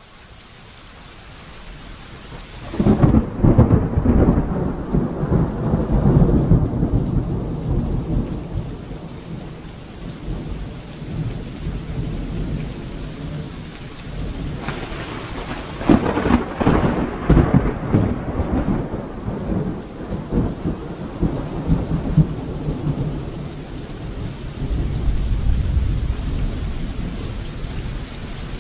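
Steady rain with rolling thunder: a loud peal about three seconds in that rumbles on for several seconds, a second crack about halfway through that rolls on for a few seconds, and another low rumble near the end.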